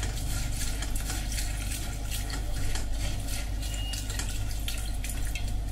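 Water pouring steadily from a steel jug into a colander of kodo millet flakes, with a hand stirring and rubbing the flakes to rinse them.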